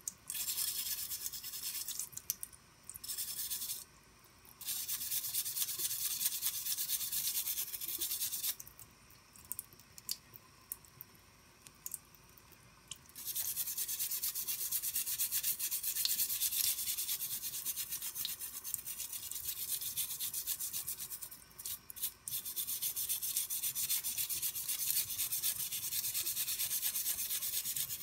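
A stiff brush scrubbing a rusty steel knife blade wet under running tap water, in fast back-and-forth strokes that make a dense, high, scratchy rasp. The scrubbing comes in long spells, with short pauses about four seconds in and again around twenty-two seconds, and a longer pause from about eight to thirteen seconds.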